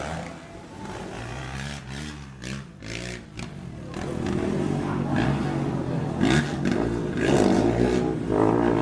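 Motocross ATV engines revving up and down as the quads ride the track, getting louder about four seconds in as they come closer.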